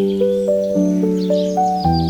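Soft piano melody, slow notes held and changing about every half second, with small birds chirping high over it.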